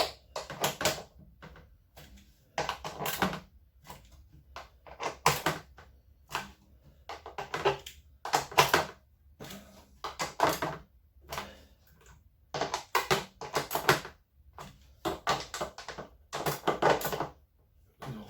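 Screws being driven one after another into an LG washing machine's casing, a short rattling burst for each screw roughly every two seconds.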